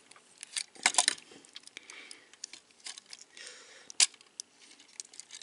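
Hard plastic parts of a Transformers Siege Springer action figure clicking and rubbing as it is worked through its transformation, tabs being pushed into slots. A cluster of clicks comes about a second in and a single sharp click about four seconds in, with lighter handling noise between.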